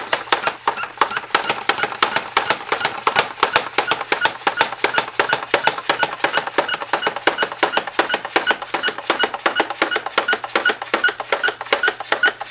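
Nerf Magstrike blaster being pumped rapidly, the pump handle worked back and forth in a quick, even rhythm of short plastic clacks and puffs of air. This builds up air pressure in its modified, leak-sealed air bladder.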